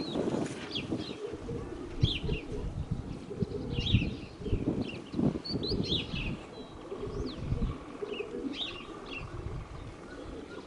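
Domestic pigeons cooing while small birds chirp in short, scattered calls, over gusty wind buffeting the microphone.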